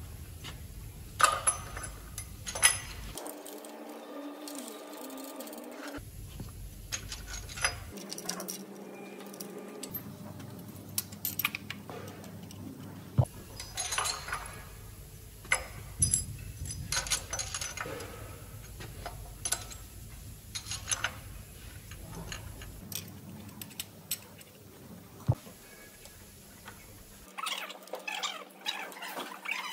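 Hand tools and metal engine parts clinking and tapping during truck engine assembly: a string of separate sharp knocks and clinks at an irregular pace, over a steady workshop background that changes abruptly several times.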